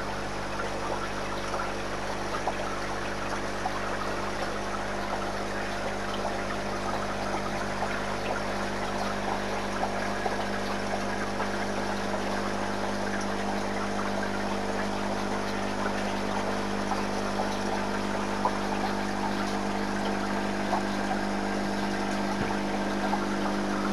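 Aquarium water trickling steadily, with a constant pump hum under it.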